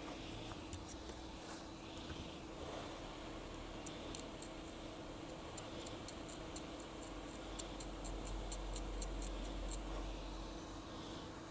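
Faint, quick, high-pitched clicks and ticks, several a second through the middle, over a steady electrical hum.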